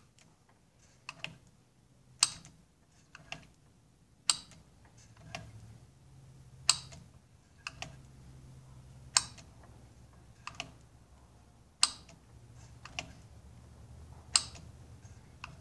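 Johnson 15 HP outboard's choke solenoid being switched on and off again and again: a sharp clack about every two and a half seconds, each followed about a second later by a lighter click. The solenoid is being cycled in the hope that it will work itself clean, as it is not moving freely.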